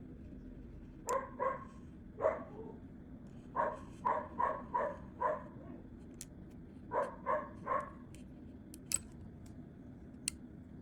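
A dog barking in short runs of barks, about eleven in all with pauses between the groups. A few sharp clicks follow near the end.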